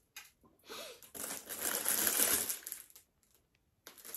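Crinkling and rustling of packaging being handled, a dense rustle lasting about two seconds from just under a second in, loudest about two seconds in, with a few small clicks around it.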